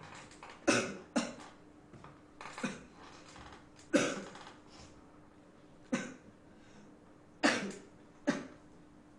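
A person coughing repeatedly: about seven single, sharp coughs, spaced one to two seconds apart.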